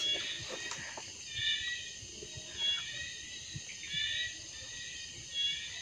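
Night insects, crickets among them, chirring steadily, with a short higher call repeating four times, about every second and a half.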